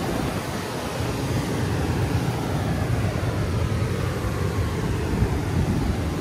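Ocean surf rumbling steadily on the beach, with wind buffeting the microphone.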